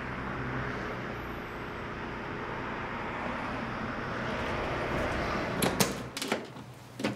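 A motor vehicle running, a steady engine hum with road noise, cutting off about six seconds in, followed by a few sharp clicks and knocks.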